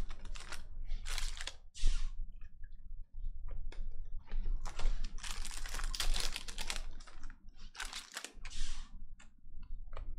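Foil wrapper of a Panini Donruss Optic basketball card pack crinkling and tearing as it is ripped open by hand, in irregular crackly bursts.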